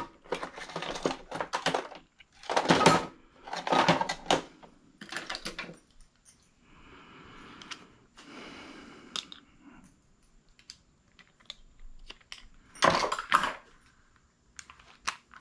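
Metal hand tools and small engine parts clinking and rattling in several short bursts, with a softer, steadier noise for a few seconds in the middle and another loud clatter near the end.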